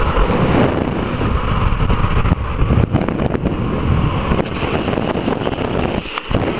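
Wind buffeting a helmet camera's microphone at speed during a downhill longboard run, over the low rumble of urethane wheels rolling on asphalt.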